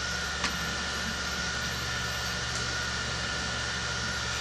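Steady background hum and hiss of room noise, with one brief click about half a second in.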